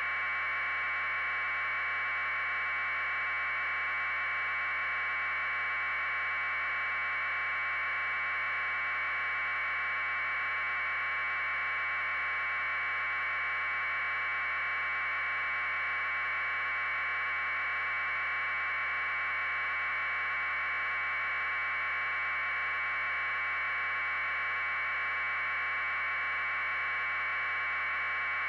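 Steady electronic hiss confined to a narrow midrange band, never changing in pitch or loudness: line noise on the audio channel of a raw aerial news feed, with no live sound from the scene.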